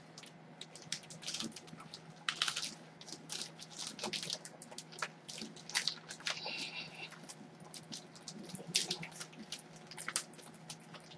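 Packaging being handled as a parcel is opened: irregular crinkling, rustling and small taps throughout.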